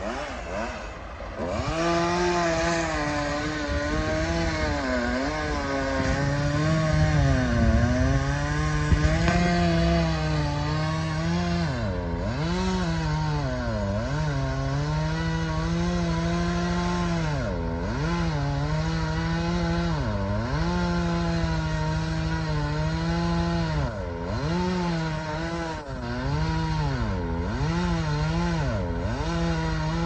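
Two-stroke chainsaw running at full throttle while cutting into the trunk of a large tree. Its pitch drops sharply again and again as the chain bogs down in the wood, and climbs back each time. It starts up to full speed about a second and a half in.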